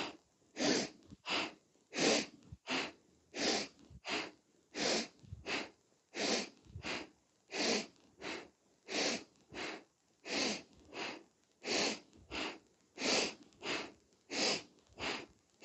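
A woman's rhythmic, forceful breathing for a kundalini yoga exercise: sharp inhales and exhales alternating evenly, about three breaths every two seconds, paced by twisting the torso side to side.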